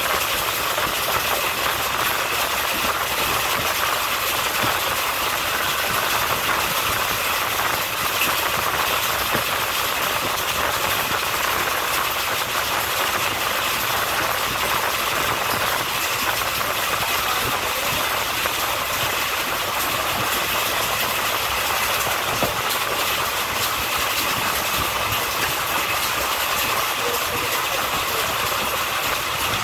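Passenger express train coach running at speed, heard from the coach side: a steady, even rush of wheel-and-rail running noise.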